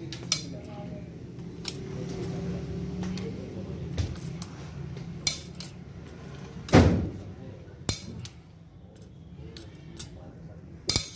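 Metal hand tools and engine parts clinking and knocking as they are handled, in scattered single strikes, the loudest about two-thirds of the way through.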